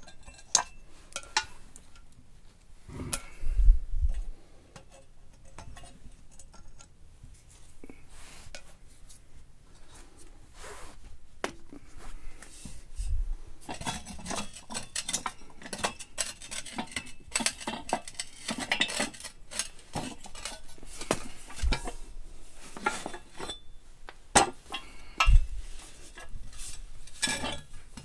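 Metal tools and parts clinking and clanking as they are handled, with scattered sharp knocks and a busier stretch of clatter in the middle.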